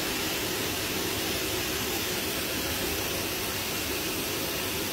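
Pet grooming blow dryer running steadily, blowing air over a dog's coat.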